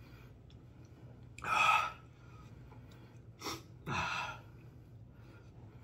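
A man's sharp, gasping breaths through the mouth from the burn of a Carolina Reaper hot sauce: one loud gasp about a second and a half in, then two shorter ones close together a couple of seconds later.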